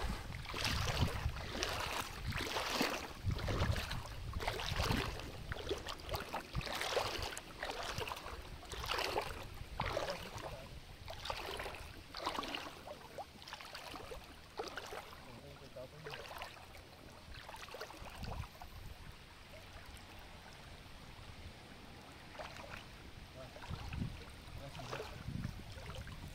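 Shallow river water splashing and sloshing as a cast net lands and is hauled back through it, in strokes about a second apart that fade after the first half. Wind rumbles on the microphone near the start.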